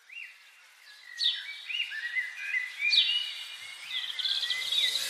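Birdsong in forest: clear whistled notes sliding up and down in pitch, repeated phrase after phrase, with a fast trill near the end, over a faint steady hiss.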